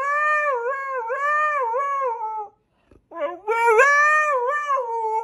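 Husky howling in long calls whose pitch wavers up and down. It breaks off about two and a half seconds in, then starts again half a second later.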